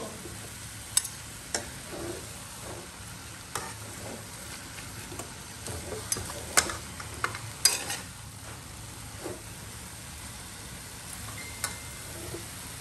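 Greens stir-frying in a steel wok: a steady sizzle, with a metal spatula scraping and knocking against the pan now and then, sharpest twice a little past the middle.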